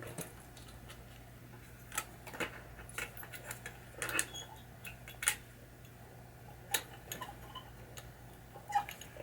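Scattered light clicks and taps of small metal and plastic parts being handled and fitted as a pinball drop-target coil assembly is put back together, over a steady low hum.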